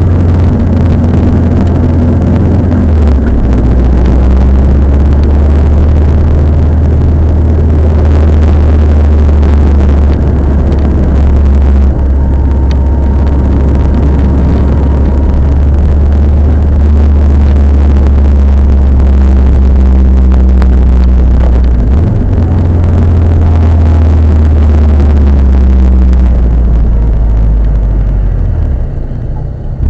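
A car running with a loud, steady low drone that shifts in pitch a few times. This is the abnormal noise the owner wondered might be a cracked brake rotor or a wheel hub.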